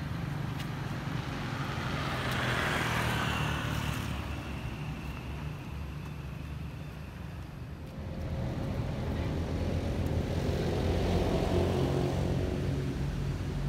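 Motor vehicles passing on a road: one swells past about two to four seconds in, and after a sudden change near eight seconds another passes with an engine note, loudest around eleven seconds.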